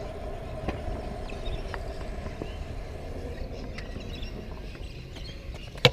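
Stunt scooter wheels rolling on pavement with a steady hum that fades over the first couple of seconds, scattered light clicks, and a sharp clack just before the end.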